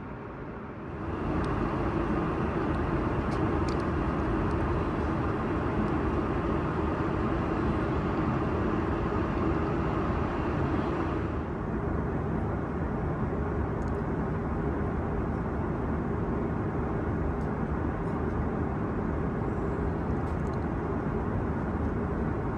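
Steady in-flight cabin noise of an Airbus A330-300 airliner: the even rush of engines and airflow. It steps up louder about a second in and changes tone slightly about halfway through.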